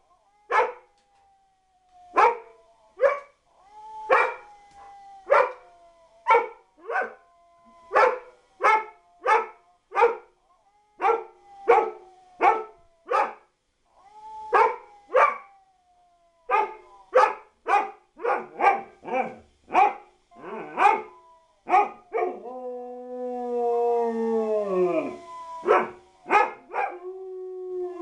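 Dog barking over and over, about one or two barks a second, with a thin howl-like tone held between the barks. About 22 seconds in comes a long howl that falls in pitch, and the barking carries on around it.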